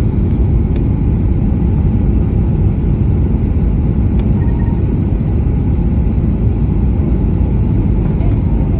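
Steady low rumble of an airliner landing, even in level throughout, with a few faint clicks.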